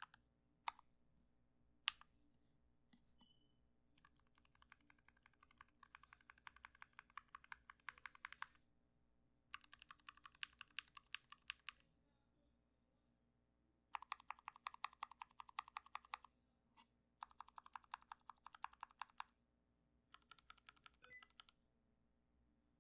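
Typing on a YMDK Wings mechanical keyboard with Gateron Black Ink V2 linear switches, Durock stabilizers and PBT keycaps, its case damped with butyl and a tape mod against hollowness. The typing comes in bursts of rapid keystrokes a few seconds long, with pauses between them and a few single key presses.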